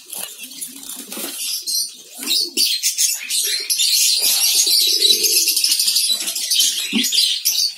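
Many zebra finches calling at once, a dense chatter of short high-pitched calls that grows thicker after about three seconds, with wings fluttering in the cage. A brief low coo-like note sounds about five seconds in.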